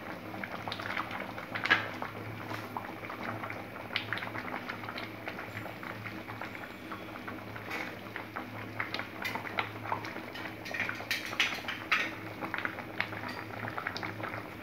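Broken wheat payasam boiling in a steel pan: many small bubbles popping and plopping at an uneven rate, over a steady low hum.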